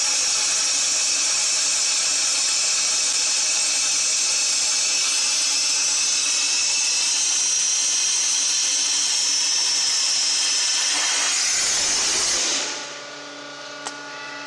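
Abrasive water jet cutter hissing steadily as its high-pressure jet cuts through a steel box-section beam. Near the end the hiss drops away and a quieter, steady machine hum remains.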